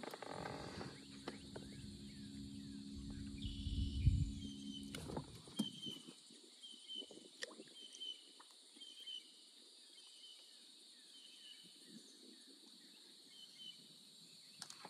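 A bird repeating a short high chirp, about one every two-thirds of a second, over a steady high-pitched background drone. For the first five seconds a low mechanical hum with a rumble runs, swells, then stops.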